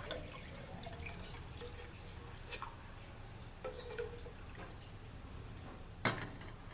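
A few light metallic clicks and taps from the stainless steel cup and stove stand, one with a brief ring, the loudest about six seconds in.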